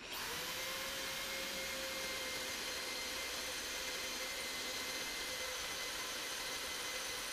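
Electric drill running steadily, a cobalt bit boring into an oiled, seized steel bolt: an even whine over hiss.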